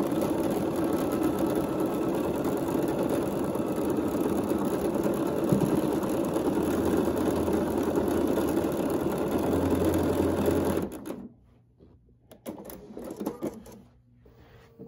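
Electric sewing machine stitching a seam at a steady speed as quilt blocks are pieced into a row, stopping about eleven seconds in; a few faint clicks follow.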